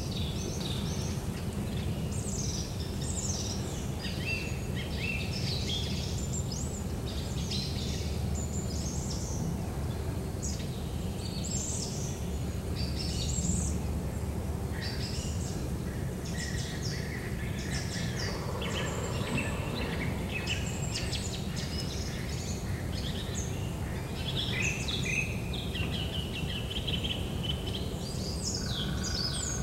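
Small songbirds chirping and calling in quick, overlapping high notes, over a steady low rumble of background noise.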